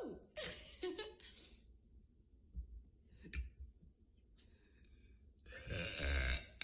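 A girl's breathing and sighs between burps, with a few faint clicks in a quieter stretch midway and a louder breathy burst near the end.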